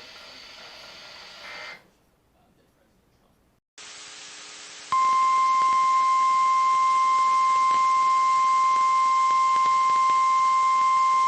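NOAA Weather Radio 1050 Hz warning alarm tone: after a brief drop-out, one loud, steady tone comes on about five seconds in and holds, over static hiss from the radio receiver.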